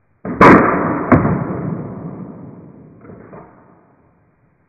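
An air gun shot: a sudden muffled blast with a sharp crack, a second crack under a second later, then a long tail fading away over about three seconds. Another shot starts right at the end.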